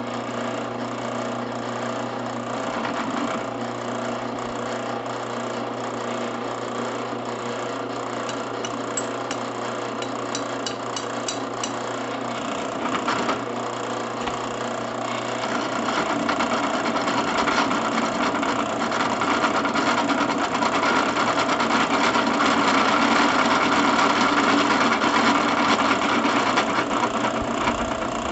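Drill press driven through a belt by a treadmill motor, running steadily with a low hum and a mechanical whirr. It gets louder about halfway through.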